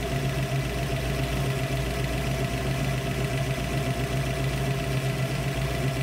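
A 347 stroker small-block Ford V8, fed by a Holley 4160 four-barrel carburetor, idling steadily when warm. Its idle mixture screw is being set by ear and by vacuum gauge for the highest vacuum.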